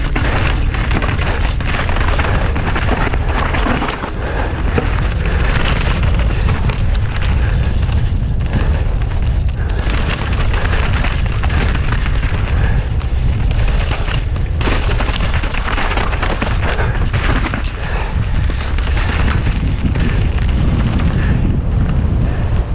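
Loud, constant rumbling buffet of wind on the microphone, with many short rattling knocks from a mountain bike descending rough ground at race speed.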